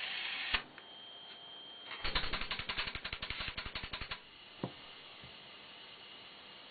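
A short burst of hiss cut off by a click, then a rapid, even run of clicks, about ten a second for two seconds, and one more click after.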